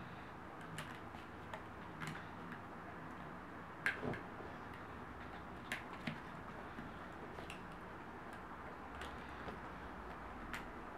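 Irregular soft clicks and ticks of a hook working rubber bands on a plastic bracelet loom, the loudest a few seconds in and again near the middle, over a faint steady hiss.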